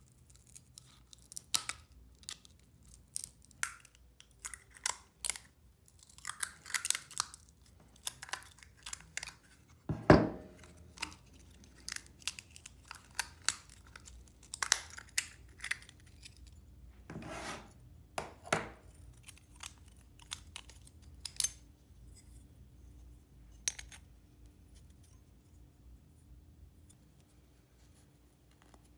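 Scattered short scraping, snipping and clicking sounds of small-scale hand work, with one louder knock about ten seconds in; the activity thins out over the last third.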